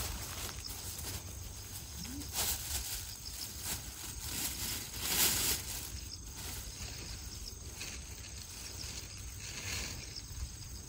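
A few short rustles and clicks of chestnut picking: tongs working in the dry burrs and chestnuts dropping into a plastic bag, over a steady low rumble.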